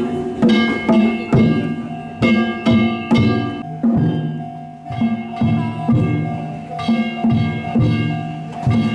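Danjiri float's festival music: a taiko drum and clanging metal gongs struck in a brisk, uneven rhythm, the gongs ringing on between strikes. The beat pauses briefly about four seconds in while a single ringing tone holds, then resumes.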